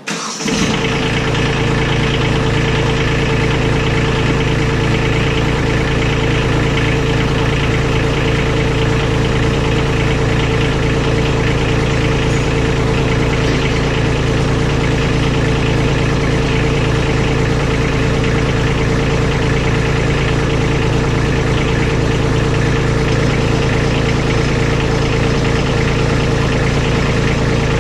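Compact tractor engine catching at once and running steadily at idle.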